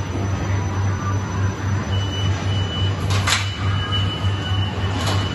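Pieri Silver Fast automatic pallet stretch wrapper running, a steady low hum with a regular pulse. A thin high whine starts about two seconds in, and there are short hisses about three seconds in and again near the end.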